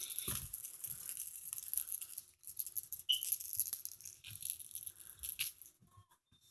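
Small bell on a cat toy jingling in quick, irregular shakes, with faint soft taps; it stops about a second before the end.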